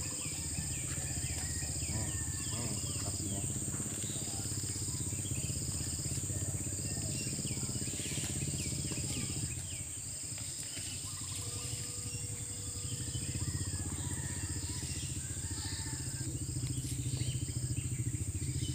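Insects calling: a steady high-pitched drone with a shorter chirp repeating roughly once a second, over a low steady hum.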